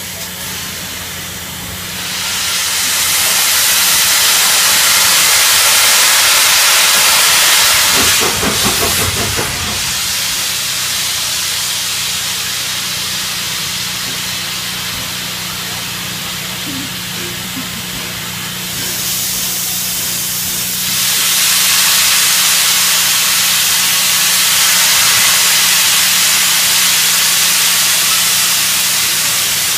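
Gresley A4 Pacific steam locomotive Bittern venting steam with a loud hiss, steady low hum underneath. The hiss swells about two seconds in, eases off around the ten-second mark and swells again later.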